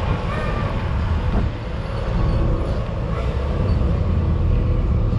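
Diesel truck engine running, a low steady rumble that gets a little louder about two seconds in.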